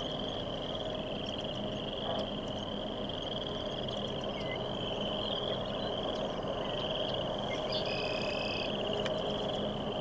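A continuous chorus of frogs trilling, a steady high pulsing drone, with a few short bird chirps and a brief whistle about eight seconds in. A low steady hum runs underneath.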